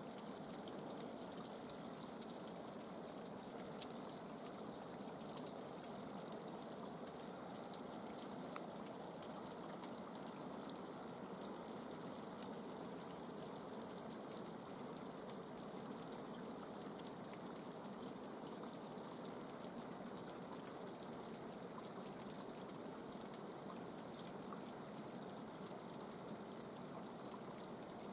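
Water trickling and dripping from icicles over rock at a partly frozen spring: a steady trickle with many small drip ticks.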